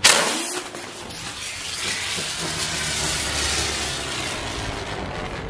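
Standard Fireworks colour-changing butterfly firecracker going off with a sudden burst, then hissing steadily as it spins on the ground throwing sparks.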